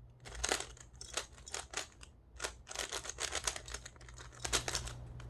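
Speed Cube Shop Spooky speedcube being turned by hand during a solve: quick clusters of plastic clicking turns with short pauses between them.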